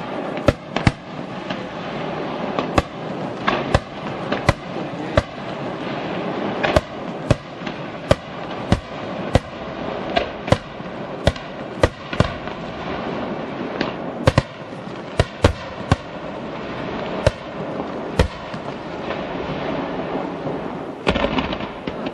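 Fireworks going off: a steady run of sharp bangs, about one or two a second, over a continuous crackle.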